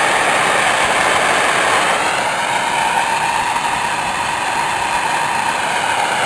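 Gas torch burning with a steady, loud rushing flame, turned up high to shrink heat-shrink tubing over wire splices.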